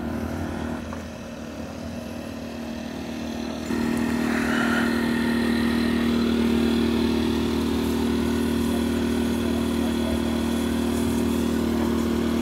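Small portable inverter generator running at a steady speed, a constant engine hum that becomes louder about four seconds in.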